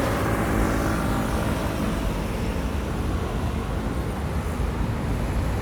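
Road traffic on a city street: a steady rush of passing cars, with one vehicle's engine hum fading out over the first couple of seconds.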